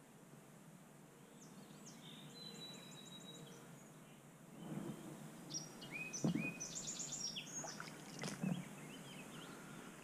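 Small songbirds singing and chirping: a quick run of high notes in the first few seconds, then a cluster of chirps in the second half. From about halfway there is rustling and handling noise, with a sharp knock about six seconds in and another near the end.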